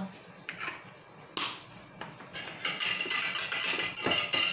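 A few light clicks, then about two seconds in a wire whisk starts beating egg-yolk batter in a bowl, its wires clattering fast and steadily against the bowl.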